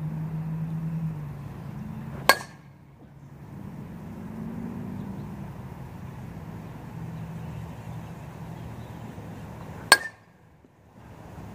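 A metal baseball bat hitting a pitched ball twice, about seven and a half seconds apart, each a sharp ping with a brief ring. A steady low rumble runs underneath.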